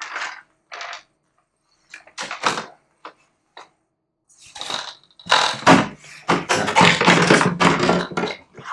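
Plastic housing panels of a smart litter box being handled and pulled apart: a few separate knocks and clicks, then a longer, louder stretch of plastic clattering and scraping from about halfway in, with a couple of loose screws dropping.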